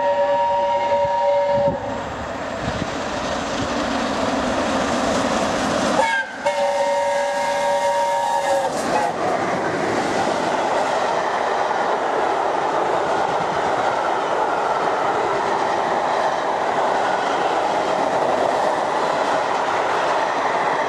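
Steam locomotive chime whistle, from the A1 Pacific 60163 Tornado, sounding two long blasts on two pitches. The first ends about two seconds in and the second runs from about six to nine seconds. After that comes the steady rumble and rail clatter of the coaching stock rolling past the platform.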